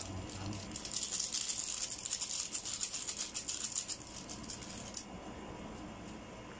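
Granulated seasoning shaken from a small sachet into a pot: a rapid, dry rattle of granules that stops abruptly about five seconds in, leaving a faint hiss.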